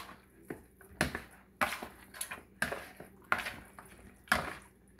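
A fork clinking and scraping against a bowl while tossing seasoned raw oxtail pieces to coat them, in irregular strokes about one a second.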